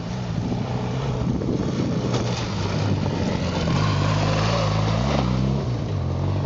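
Motorcycle engine running on a gravel track, its pitch stepping up and down a little as the rider works the throttle, with a steady rushing noise over it.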